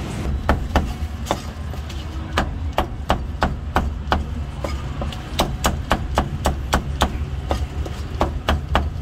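Meat cleaver chopping braised and roast pork on a thick round wooden chopping block: quick, irregular sharp chops, about two to three a second and coming closer together in the second half, over a steady low hum.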